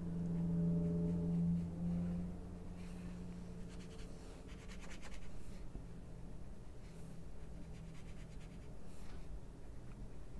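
Water brush rubbing in short strokes across coloring-book paper, wetting and blending watercolor pencil colour. A low steady hum is loudest for the first two seconds.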